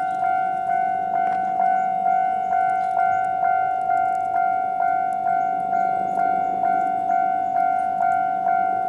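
Japanese railway level-crossing alarm sounding its standard electronic bell, warning that a train is coming. It rings evenly at about two strikes a second, each strike a bright tone that fades before the next.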